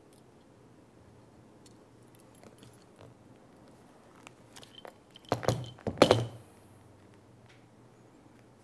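Hand crimping pliers working a metal sleeve on leader line with small clicks, then two loud metallic clatters a little past halfway as the pliers are handled and set down on the desk.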